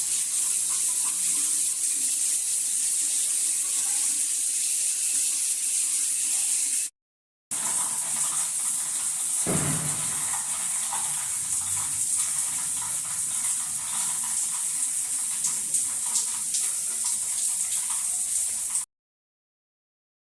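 Running water, a steady hiss. It cuts out abruptly for about half a second a third of the way in, then runs on and stops dead shortly before the end.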